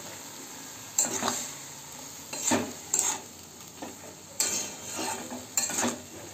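Flat steel spatula scraping and stirring chopped banana flower and potatoes in a metal kadai, a sharp scrape every second or so, over a steady sizzle of frying in oil.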